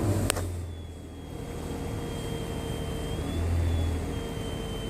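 A 2007 Toyota FJ Cruiser's V6 engine settles from a rev, with a click early on, then is briefly revved again. Over it a thin, steady high whine comes through the VHF radio and rises in pitch with engine speed: ignition/alternator noise getting into the radio through its power supply.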